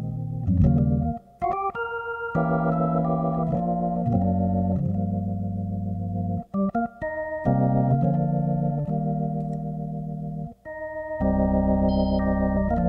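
Hammond B3 organ played solo: held chords that change every second or so, cut off briefly a few times between phrases.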